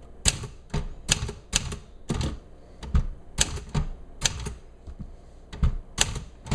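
Typing on a 1959 Remington Quiet-Riter manual portable typewriter: the typebars strike the platen in a string of sharp, uneven clicks, about three a second.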